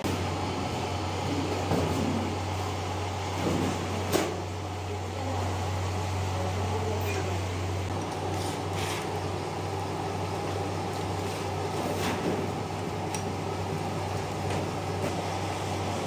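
Steady low electrical hum of workshop machinery, with a few sharp clicks and taps as a thin stainless steel sheet is handled on the floor. The loudest click comes about four seconds in.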